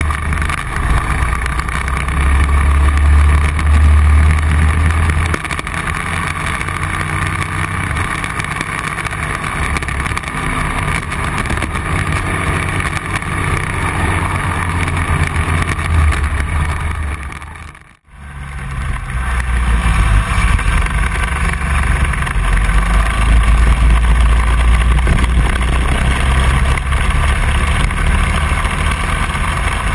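Go-kart engine running at speed on track, heard onboard. The sound drops out for a moment about two-thirds of the way through, then returns.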